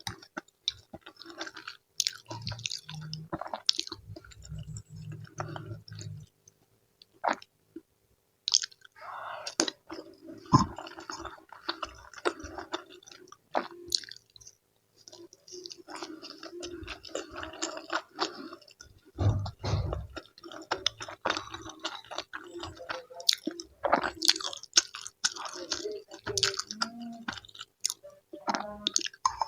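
Close-miked chewing of sayur asem and fried tempeh: wet, squishy mouthfuls with crunchy bites and short smacking clicks coming in irregular runs. A faint steady hum lies underneath.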